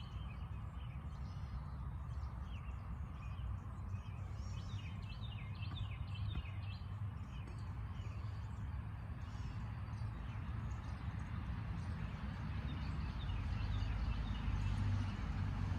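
Several small birds chirping and singing in quick, repeated short notes, over a steady low rumble that grows louder near the end.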